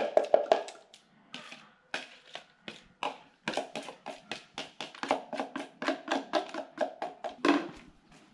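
Quick light taps and clinks on a stainless steel dog bowl as food is knocked out of a plastic cup into it and a dog starts eating from it, a fast run of small knocks through the middle and latter part, some with a short metallic ring.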